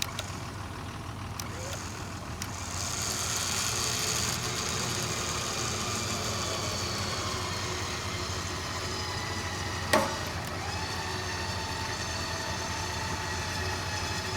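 Harbor Freight Badland electric winch motor whining steadily as it pulls a stuck truck out under load. Beneath it a vehicle engine idles. There is a sharp click about ten seconds in.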